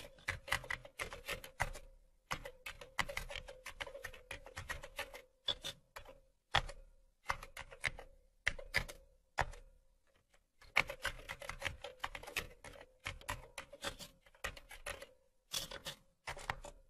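Rapid typing: keys struck in quick runs, broken by brief pauses every few seconds.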